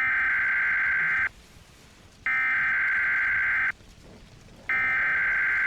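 Emergency Alert System SAME digital data tones: three identical harsh, buzzy bursts, each a little over a second long with about a second of quiet between them. These are the coded data bursts that carry an alert's machine-readable header.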